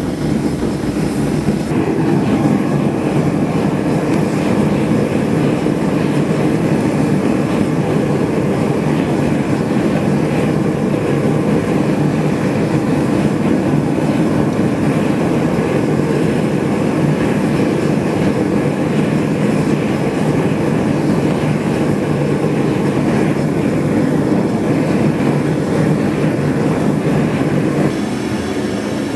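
Gas forge burner running with a steady, loud rushing noise while steel parts heat for hardening. It drops a little in level near the end.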